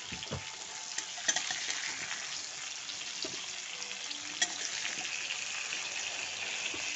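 Fish pieces frying in hot oil in a steel kadai with a steady sizzle, broken by a few sharp clicks of a utensil against the pan as the pieces are turned.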